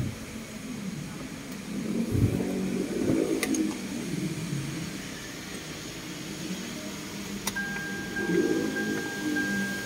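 Hyundai Elantra engine idling roughly, rising and falling unevenly: a misfire that the mechanic traces to a failing crankshaft position sensor (code P0335). A thin steady beep starts with a click about seven and a half seconds in.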